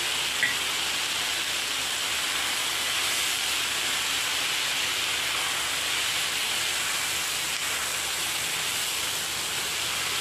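Chicken and bell peppers sizzling steadily in a hot pan as they are stir-fried with a wooden spatula, with one short click about half a second in.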